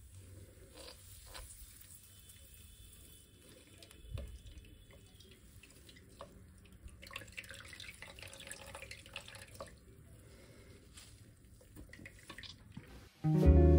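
Green juice being squeezed by hand through a cloth straining bag, trickling and dripping into a bowl, faint, with a soft thump about four seconds in. Acoustic guitar music starts loudly near the end.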